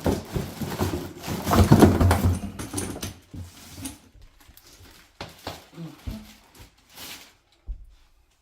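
Rustling and knocks of packaging and plastic parts being handled as a boxed pressure washer is unpacked, busiest about two seconds in, then scattered knocks with quiet gaps.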